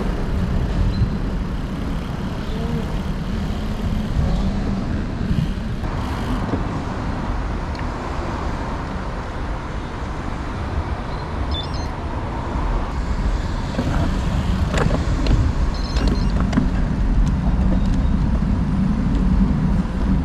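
Road traffic noise and wind rushing over a bike-mounted camera while riding on a road, with a few sharp clicks in the second half.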